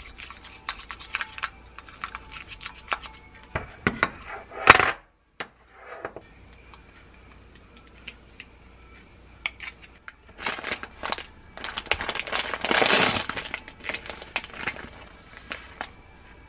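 Kitchen handling sounds: a spatula stirring and clicking against a glass bowl of thick green-tea Greek yogurt, and a metal ice-cream scoop clinking as yogurt is scooped onto a ceramic plate. A longer, louder stretch of rustling and clatter in the second half as a small rice cake is set out beside it.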